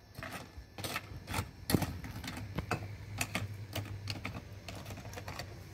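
Small plastic toy cookware clicking and tapping irregularly as a toy pan and utensils are handled and knocked together in pretend cooking, over a faint steady low hum.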